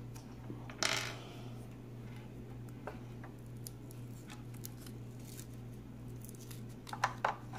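Light clicks and clatter of small hard plastic pieces being handled: a short scrape about a second in, scattered ticks, then a quick run of sharp clicks near the end, over a low steady hum.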